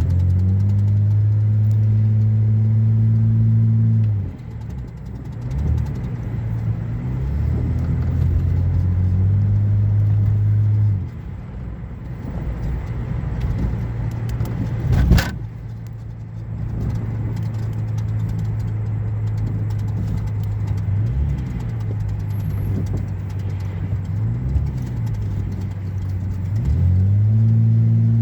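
Car engine running, its revs raised and held for a few seconds at a time, then dropping back to idle, several times over. A faint tapping, which the owner finds weird, may be present. A single sharp knock comes about fifteen seconds in.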